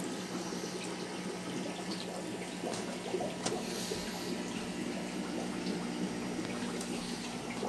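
Aquarium water circulation in a fish room: a steady trickle of water with a low hum under it and a few faint ticks.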